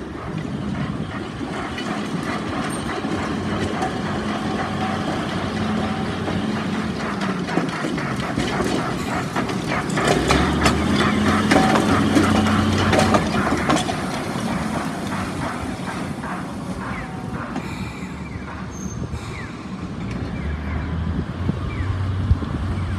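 Botchan Ressha, a diesel-powered replica of a small steam locomotive, passing on street tram track: a steady engine hum grows louder to a peak about halfway through, with clicking and rattling of wheels over the rails. Then it fades and road traffic takes over near the end.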